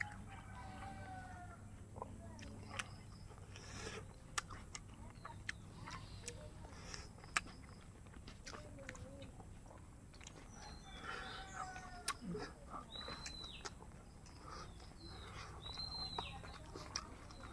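Chickens clucking in the background, calls coming near the start and again about two-thirds of the way through, with a small bird's short high chirps near the end. Soft clicks and mouth smacks of someone eating rice by hand run underneath.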